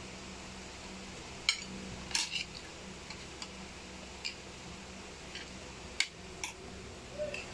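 A metal spoon clinking and scraping against plates as rice is scooped, a handful of separate sharp clinks, with a steady low hum behind.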